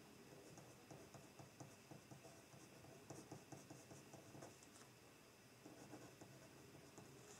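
Faint scratching of a pen writing on notebook paper, in short, irregular strokes.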